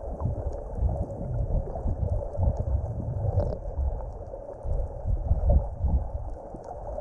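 Muffled underwater noise picked up by a submerged camera: uneven low rumbling and sloshing of water moving around the housing, with faint high ticks throughout.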